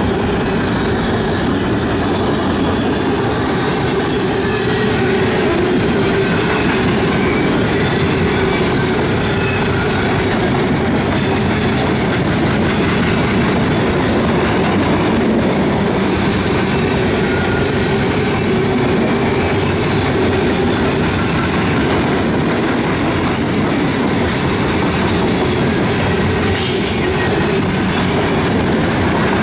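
A long CSX manifest freight train's cars rolling steadily past at track side: a continuous rumble with wheels clattering over the rail joints.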